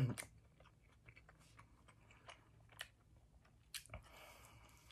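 Faint close-miked chewing of roasted cauliflower on pita bread: soft, scattered mouth clicks. Just before four seconds in, a bite into another piece of pita, followed by a louder stretch of chewing.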